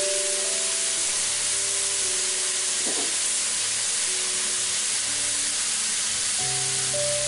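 Chicken pieces, shrimp and shredded carrot sizzling steadily in hot oil in a wok, under soft background music of held notes.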